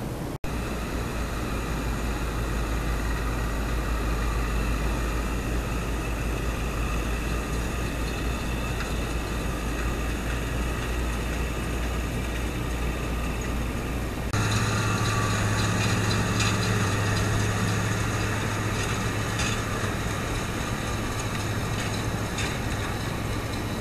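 Farm tractor engine running steadily while pulling hay equipment, first a wheel hay rake and then a baler. The sound changes abruptly about fourteen seconds in to a louder, deeper steady hum.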